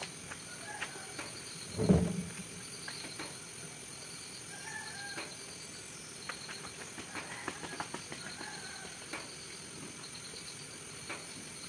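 Chickens clucking now and then in short calls, over a steady pulsing insect chirp. A short low thud about two seconds in is the loudest sound.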